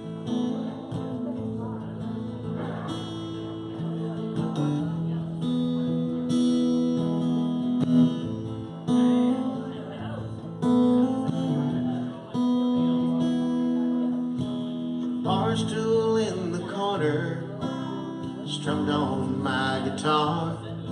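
Electric guitar playing the introduction to a song, strummed chords and held notes. A man begins singing over it in the last few seconds.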